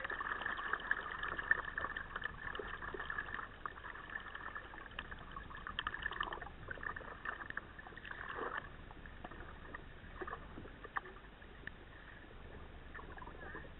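River water lapping and dripping against a kayak's hull close to the microphone: many small splashes and drips, with a couple of brief swishes about six and eight seconds in, gradually getting quieter.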